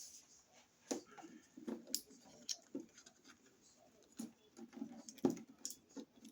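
Irregular light clicks, taps and knocks of hard plastic being handled, several a second, with a sharper knock about five seconds in.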